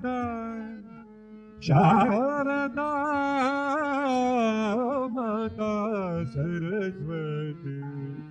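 Intro music: an Indian classical-style melody with gliding, wavering notes over a steady drone. One phrase fades out in the first second, and a new one starts just under two seconds in.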